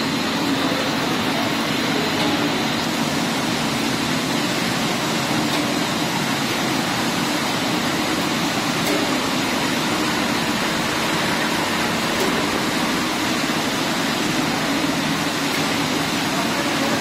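Steady mechanical noise of a corn-ring snack extrusion line running, with its dryer, conveyors and rotating flavoring drum all going at once. It is an even, unbroken hum and rush with no distinct knocks or changes.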